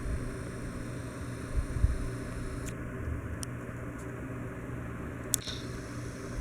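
Heritage Empire Deluxe ceiling fan running with a steady low hum. A couple of low thumps come about two seconds in, and a few faint ticks are heard later.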